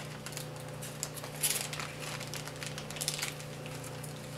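Foil and paper MRE ration packaging being handled: a few short crinkling rustles over a steady low hum.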